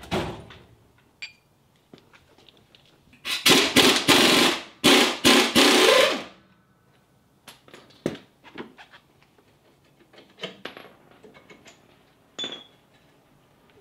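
Impact wrench run in several short bursts a few seconds in, loosening a control-arm bolt. Scattered clinks and clicks of tools on metal follow.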